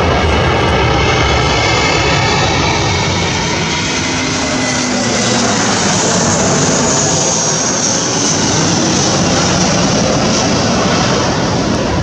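Airbus A321 jet airliner with gear down flying low overhead on final approach: steady jet engine noise with a high fan whine that swells as the aircraft passes, about halfway through, while a lower tone glides down in pitch.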